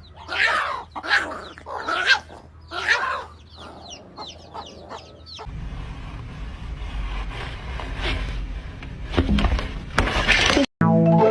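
A run of short animal calls that rise and fall in pitch, several a second, for about five seconds; then a steady low rumbling noise takes over, with a couple more calls near the end.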